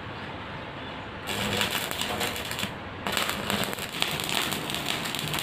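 Stick (electrode) arc welding on a square steel tube gate frame: the arc crackles and sizzles, starting about a second in, breaking off briefly near the middle, then striking again and running on.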